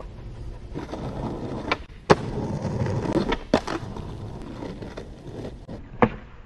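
Skateboard wheels rolling on a concrete street, broken by about five sharp clacks of the board hitting the ground as tricks are done, the loudest about two seconds in, at three and a half seconds and near the end.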